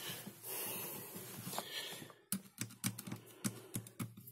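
Screwdriver working a hinge screw out of an opened HP laptop. A faint rustle first, then from a little past halfway a run of short sharp clicks, about four a second.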